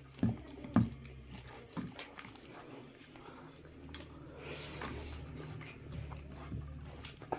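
Close-up eating sounds: chewing, biting and lip-smacking on fried chicken and rice eaten by hand, with a few sharp wet smacks, the loudest about a second in. A low steady hum runs beneath the second half.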